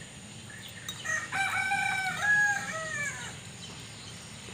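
A rooster crowing once, about a second in: a drawn-out, multi-part call that ends on a falling note.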